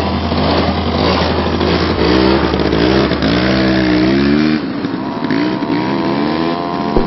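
ATV engine running, revving up and down a few times between about two and four seconds in, then settling to a steadier drone.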